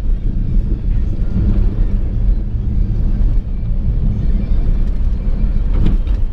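Heard from inside the cab, a 2001 Jeep Cherokee's 4.0 straight-six runs steadily as it drives a sandy dirt trail: a continuous low engine rumble mixed with tyre and body noise. There is a brief knock or rattle near the end.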